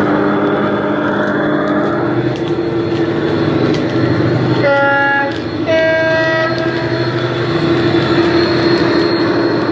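A model HST's Loksound 4 sound decoder plays a Paxman Valenta engine sound through EM2 speakers, running steadily. About halfway through, the two-tone horn sounds, a lower note then a higher one, each about half a second long.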